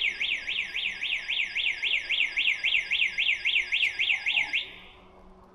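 Electronic security alarm siren sounding in fast up-and-down sweeps, about four to five a second, then cutting off suddenly near the end.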